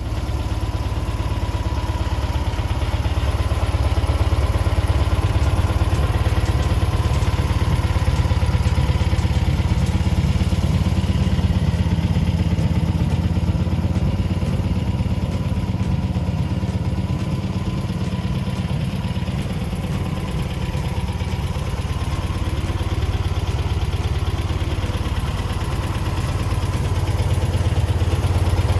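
Air-cooled VW-type flat-four engine (SSP 1641 SP2) on a Rewaco HS4 trike running steadily at idle, with no revving.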